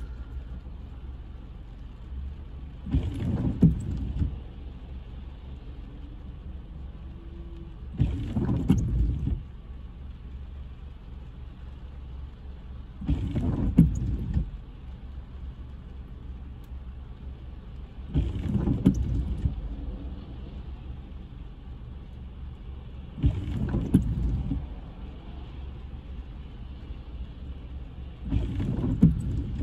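Car windshield wipers on an intermittent setting, sweeping across the rain-wet glass about once every five seconds, each pass lasting just over a second. Between sweeps a steady low hum of the car idling.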